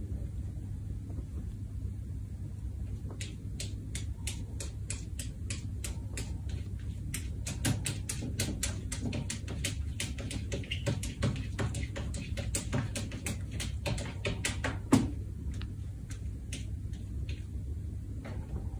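A cat's paws and claws pawing and scratching at a blanket and the mat beneath, heard as many sharp, irregular clicks and taps in quick runs. There is one louder knock about fifteen seconds in, and a steady low hum underneath.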